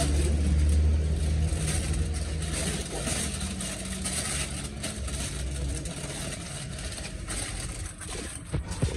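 Aluminium foil crinkling and rustling as it is folded and pressed around a chicken, in many short crackles. A low engine rumble fades out over the first few seconds.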